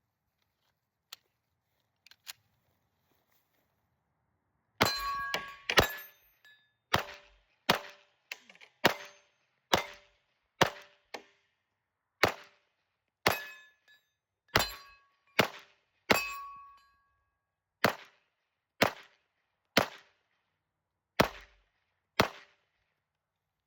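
Glock 17 Gen 6 9mm pistol fired about eighteen times at a steady pace of roughly one shot a second, starting a few seconds in. Each shot is followed by a short metallic ring from a steel target being hit.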